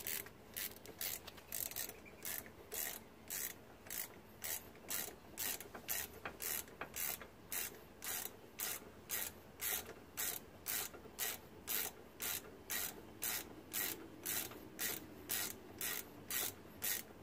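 Socket ratchet wrench clicking in short, even strokes, about two a second, as a brake caliper bolt is run in by hand.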